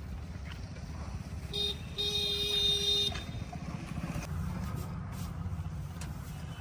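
Diesel engine running with a steady low rumble, while a vehicle horn gives a short toot about one and a half seconds in, then a honk lasting about a second.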